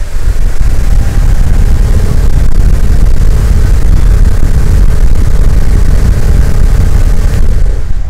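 Repaired old table fan running at full speed, its strong draught blowing on the microphone as a loud, steady low rumble, with a faint motor hum underneath. The motor runs smoothly with no rattle or knocking.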